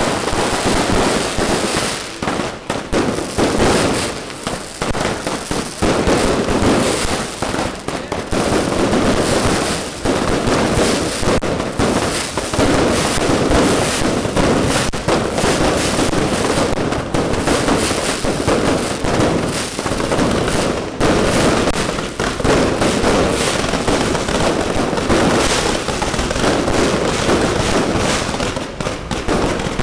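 Fireworks going off in a dense, continuous barrage of bangs and crackling, with only brief dips.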